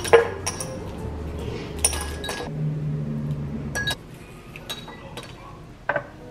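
Small ice cubes pushed out of a silicone ice tray, dropping and clinking into a glass: a few separate sharp clinks spread over several seconds, the loudest just after the start.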